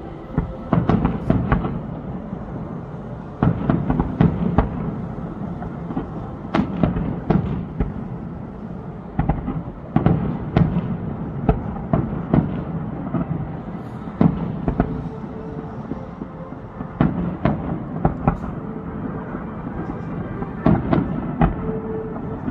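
Fireworks display: aerial shells bursting in a rapid, irregular run of sharp bangs, often several close together, over a continuous low rumble.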